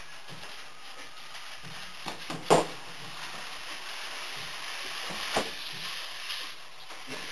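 Cardboard shoebox with a cat riding in it being pulled across a wooden floor, over a steady hiss, with a few sharp knocks: the loudest about two and a half seconds in and another about five seconds in.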